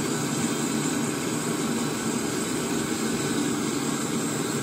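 Brazing torch flame burning with a steady, even rush while filler rod is melted onto a leaking copper AC discharge line.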